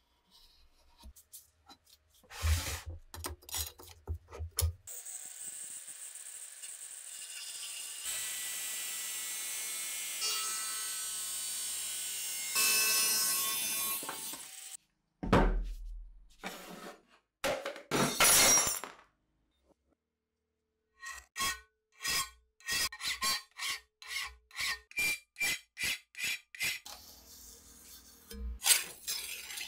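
Makita angle grinder cutting through a rusty steel cleaver blade for about ten seconds: a steady high hiss with the motor's whine. Before it, an engraving pen buzzes briefly on the steel. After it come a few loud knocks and a run of regular scraping strokes, about two a second.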